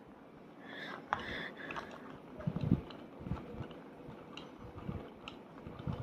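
Ceiling fan running on high, with a faint steady hum under scattered clicks and low thumps, the strongest thump about two and a half seconds in.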